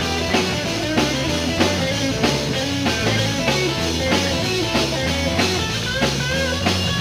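Live rock band playing an instrumental break: an electric guitar lead with bent notes over a steady drum beat and bass line.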